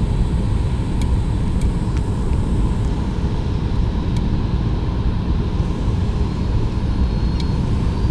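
Cabin noise of a Boeing 737-900 airliner on approach: a steady low rumble of engines and airflow, with a faint steady whine above it.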